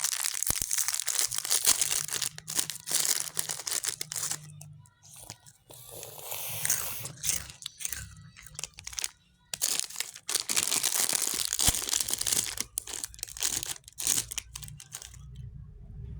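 Plastic snack wrappers crinkling and tearing in repeated bursts as sweet packets are handled and opened, dying down near the end.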